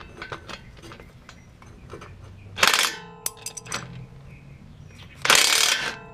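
Wrench work on the brake caliper bolts: scattered clicks, then two short harsh bursts, about two and a half seconds apart, each followed by clanks that ring like struck steel.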